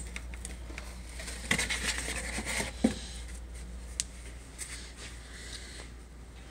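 Paper and cardboard being handled: rustling and scraping as an envelope and notes are taken out of a cardboard box, with a few light taps.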